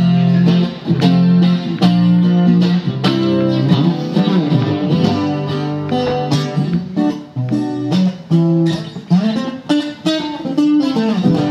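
Guitar strumming chords in a steady rhythm, an instrumental passage of a live song with no vocals.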